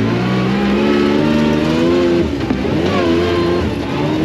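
Side-by-side off-road buggy engine revving. Its pitch climbs, drops sharply about two seconds in, then rises and falls again.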